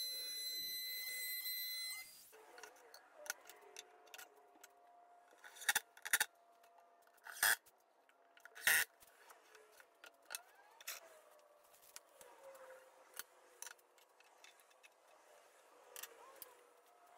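Router motor running with a high whine for about two seconds, then cutting off. After that, a series of short bursts from a cordless drill-driver running screws into metal drawer slides, four of them louder, between small clicks and handling noises.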